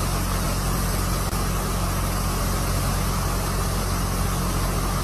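Floodwater rushing in a steady torrent across a road, with the low, even hum of an idling vehicle engine underneath.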